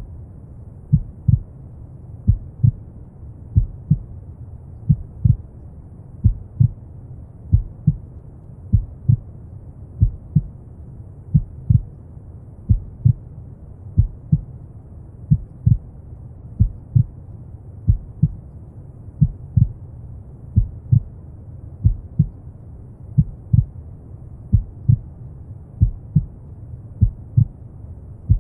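Slow heartbeat, each beat a low double thump (lub-dub) coming about every second and a third, over a steady deep brown-noise rumble.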